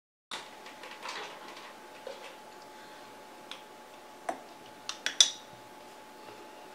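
Light taps and clinks of painting tools being handled, with a cluster of sharper clinks about five seconds in, over a faint steady hum.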